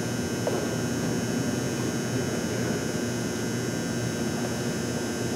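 Steady room tone of a large gymnasium: a low, even hum with a constant hiss and no other distinct event.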